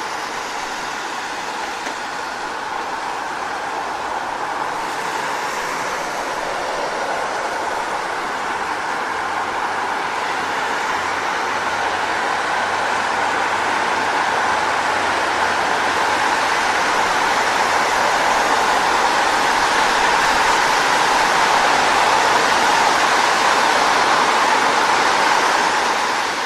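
Car tyres hissing on a wet road, a steady spray of noise that slowly grows louder.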